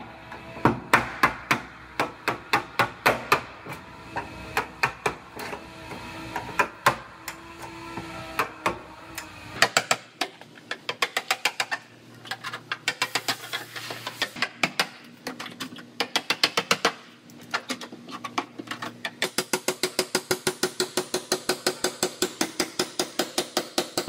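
A hammer repeatedly strikes a steel chisel driven into the seams of a car's sheet-metal rear body panel, prying the panel off the body. The strikes are spaced out at first, then come in quick runs of about four to five a second from about ten seconds in.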